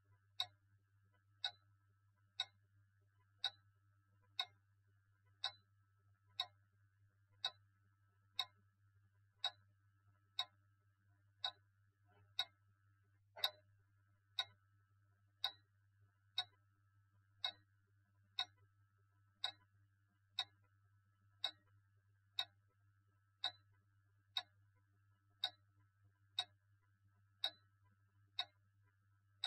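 A clock ticking steadily, about one tick a second, over a faint low hum.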